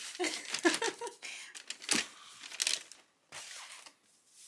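Takeout food packaging crinkling and tearing in irregular rustling bursts as the delivery containers are unwrapped.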